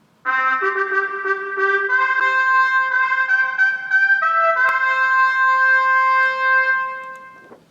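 Music: a short melody in a trumpet-like brass sound, several notes ending on a long held note that fades out near the end.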